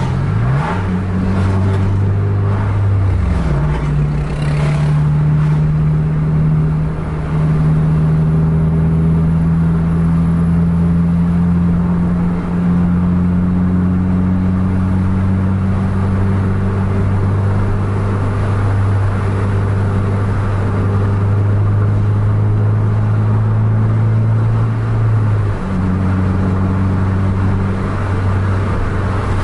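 Car engine heard from inside the cabin, running hard at speed under acceleration. The revs dip and climb again in the first few seconds, then rise slowly and steadily, and fall suddenly near the end as it shifts gear.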